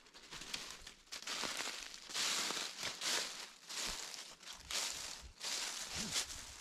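Footsteps walking through leaf litter on a wooded floor, a step about every half second to second.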